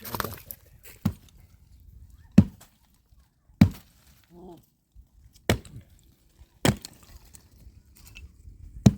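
Firewood being chopped: about seven sharp, separate blows, one every one to two seconds.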